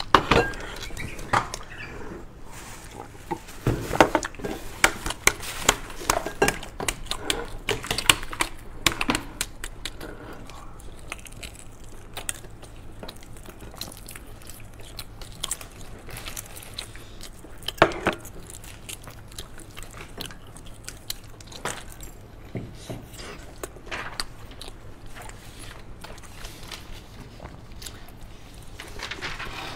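Century eggs being cracked and peeled by hand: sharp eggshell clicks and crackles, densest in the first ten seconds. After that come close-miked mouth sounds of biting and chewing the soft egg, with a louder snap about eighteen seconds in.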